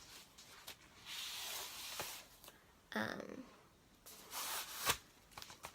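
Packaging of a tablet case being handled and opened: rustling and rubbing, with a short rasp about three seconds in and a couple of sharp clicks.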